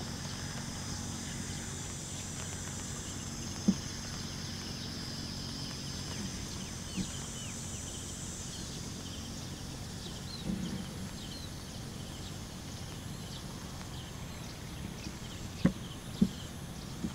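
Outdoor ambience of a wet rice field: a steady background hiss with a high, drone-like layer that fades out about halfway, small high chirps, and a few sharp knocks, the loudest two near the end.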